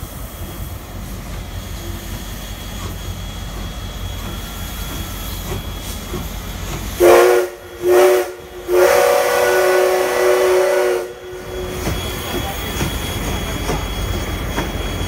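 DT668, a DT650-class steam locomotive, pulling out of the station with steam hissing and the train rumbling past. About seven seconds in, its chime-like whistle sounds as a departure signal: two short blasts, then one long blast of about two and a half seconds.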